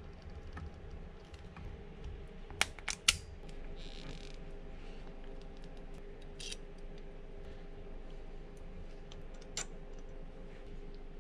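Hand wire crimpers snapping shut three times in quick succession about three seconds in, cutting and crimping the thick red power wire and its ring terminal. Small clicks and rustles follow as the ring terminal and automotive circuit breaker are handled, over a faint steady hum.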